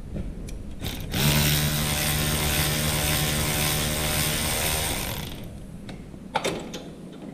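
A power tool runs steadily for about four seconds, starting about a second in and winding down near five seconds, with a steady whine over a hiss. Short metallic clicks come before it and again near the end.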